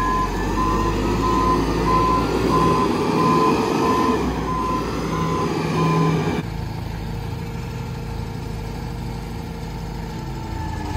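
Telehandler's reversing alarm beeping at a steady pace, about one and a half beeps a second, over its running engine. About six seconds in the beeps stop and the engine falls back to a quieter, lower run.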